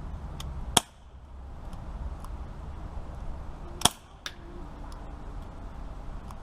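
Daisy Powerline 426 CO2 BB pistol firing twice, about three seconds apart, each shot a sharp crack. A fainter click follows about half a second after the second shot.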